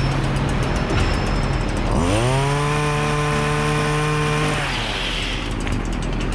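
Chainsaw engine running, revving up smoothly about two seconds in, holding high for a couple of seconds, then dropping back.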